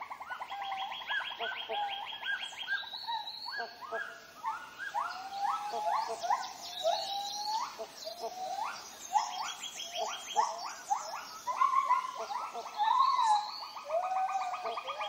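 Tropical rainforest chorus of many overlapping animal calls: fast pulsed trills that stop and start, and many short calls that rise sharply in pitch, busiest in the middle.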